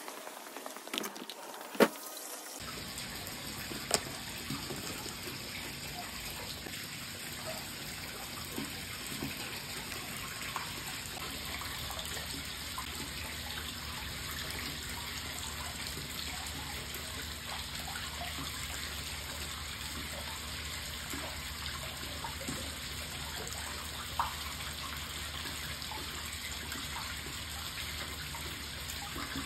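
Steady running water in a koi pond, with small scattered splashes as koi feed at the surface. A sharp knock sounds about two seconds in, and another a couple of seconds later.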